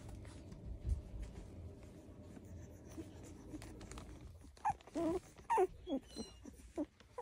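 Cocker spaniel puppies whimpering: a run of short cries, each falling in pitch, beginning about two-thirds of the way in. Before that, only faint shuffling and handling noise.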